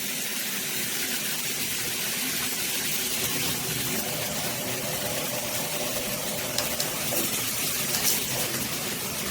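Water spraying steadily from a shower head, an even hissing rush of falling spray.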